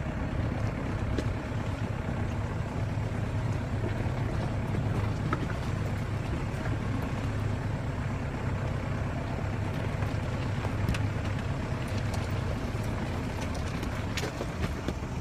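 A diesel four-wheel-drive's engine running steadily at crawling speed, heard from inside the cab as it drives over loose stones, with scattered short knocks and rattles from the rocks and the body.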